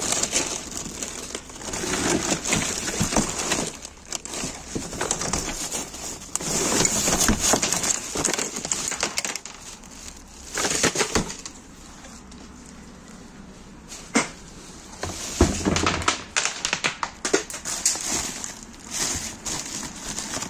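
Plastic bags and bubble wrap rustling and crinkling in irregular bursts as items are pulled about and handled, with a few sharp knocks of hard objects.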